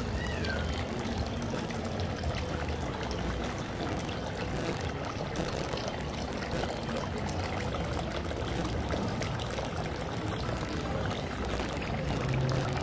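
Steady outdoor street ambience: an even wash of background noise with no single sound standing out.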